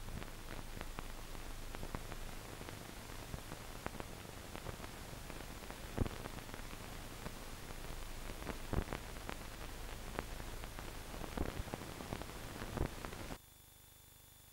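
Hiss of an old optical film soundtrack with scattered crackles and pops, no speech or music. It cuts off about a second before the end, leaving a fainter hiss with a thin high whine.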